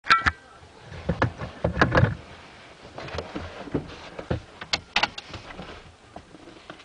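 Irregular clicks, knocks and rustles inside a parked car's cabin, with a short high squeak at the very start.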